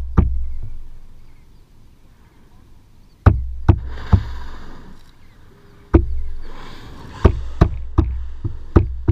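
Knuckles knocking on a plastic kayak hull in quick groups, about ten knocks, each leaving a low ringing from the hull: the warning paddlers give so surfacing humpback whales know the boat is there. Between the knocks a humpback whale blows twice, a breathy whoosh about four seconds in and again about seven seconds in.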